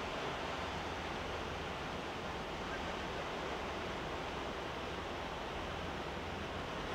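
Steady rushing noise of the sea, like surf heard from above, with a constant low rumble underneath.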